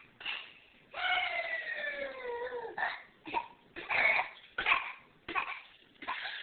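A long whine falling in pitch, then a string of about six short, sharp sneezes.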